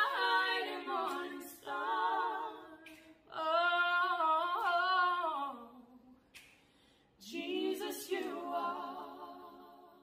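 Unaccompanied gospel singing by a single voice, held wordless notes with a wavering vibrato in about four phrases, the last one fading away near the end.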